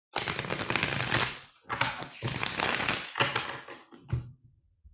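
A deck of tarot cards being riffle-shuffled by hand: two long runs of rapid flicking cards, followed by shorter clatters as the halves are pushed together and bridged.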